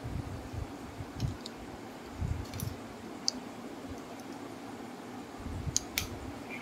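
About six sharp, scattered clicks, the loudest two close together near the end, with soft low knocks as of handling, over a steady low hum.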